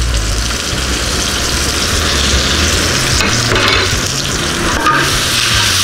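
Chopped bell peppers and garlic sizzling in hot oil in a sauté pan, a steady frying hiss over a low hum.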